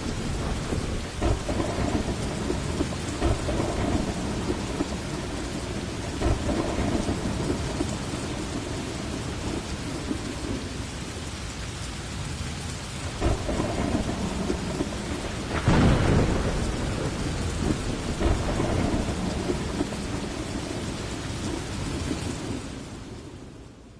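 Steady rain with rolling thunder; a louder thunderclap rumbles about two-thirds of the way through. The sound fades out near the end.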